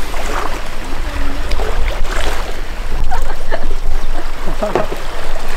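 Outdoor seaside noise: a steady rush of wind and sea water with a heavy low rumble, and brief faint voices now and then.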